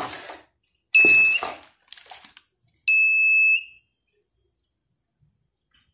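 Handheld metal detector's alarm sounding twice, each a steady high beep of about half a second, as it is swept over a gold ring: the signal that it has picked up metal. A burst of handling noise comes with the first beep.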